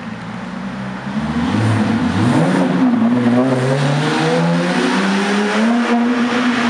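Porsche 911 GT3's naturally aspirated flat-six accelerating up a car-park ramp, the revs rising sharply about a second in and then pulling steadily higher, echoing off the concrete.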